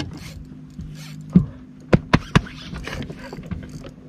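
Four sharp knocks on an aluminium fishing boat, three of them in quick succession near the middle, over a steady low hum.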